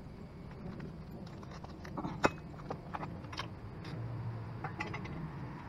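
Small metal clinks and clicks of steel bolts, washers and a socket being handled and fitted by hand, with one sharper click about two seconds in.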